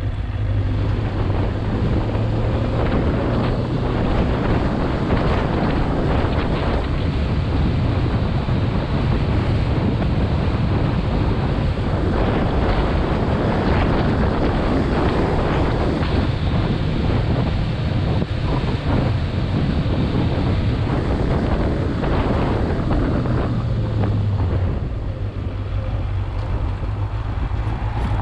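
Wind rushing over the microphone of a moving motorcycle, with the motorcycle's engine running steadily underneath as a low hum. Near the end the wind noise eases a little and the engine note drops as the bike slows.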